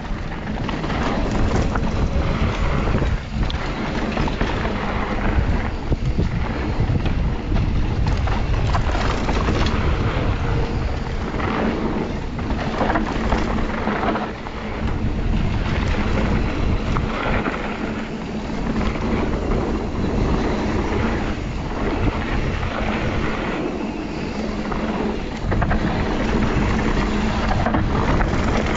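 Wind buffeting the microphone of a camera on a moving mountain bike, over the rumble and rattle of tyres rolling down a rough dirt trail; the noise is continuous and surges unevenly.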